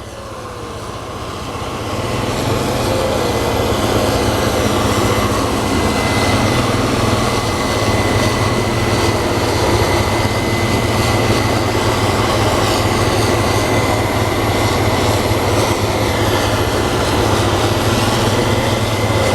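Diesel harvest machinery working a wheat field, a combine harvester with the grain-cart tractor, running as a loud steady drone with a thin steady high whine over it. The drone builds up over the first few seconds and then holds.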